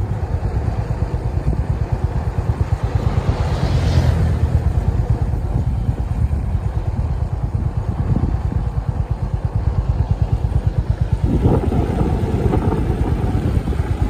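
Honda CB350 RS single-cylinder engine running steadily as the motorcycle is ridden, with wind rushing over the microphone.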